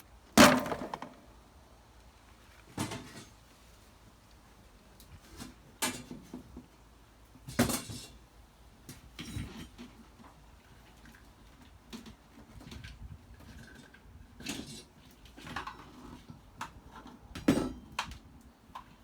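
Irregular knocks, bangs and clattering from demolition work, pulling apart a popup camper's interior cabinetry, with the loudest bang about half a second in.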